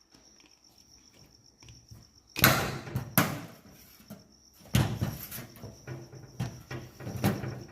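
Several sharp knocks and clatters of hard objects being handled, spaced irregularly after a quiet start, over a steady high cricket chirp.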